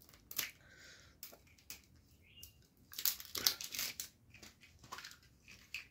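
A plastic surprise-egg capsule being twisted and prised apart by hand: scattered plastic clicks and creaks, with a denser stretch of crackling and crinkling about three seconds in.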